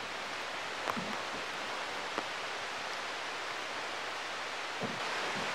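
Steady hiss of flowing river water, with a few faint knocks about one and two seconds in and near the end.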